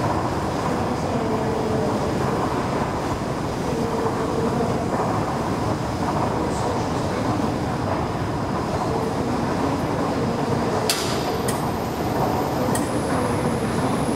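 Steady, loud mechanical rumble with a faint high tone. Two sharp clicks come about eleven seconds in, followed by a thin high-pitched whine.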